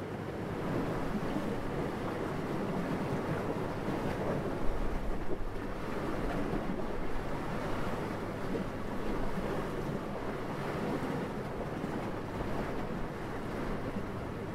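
Sea waves washing with wind: a steady rushing noise, with a few louder swells about five seconds in.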